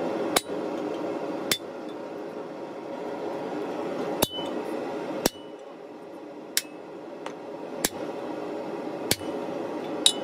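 Blacksmith's hand hammer striking a red-hot steel bar on an anvil: about eight single blows, roughly one a second, some leaving a brief high ring. A steady low hum runs underneath.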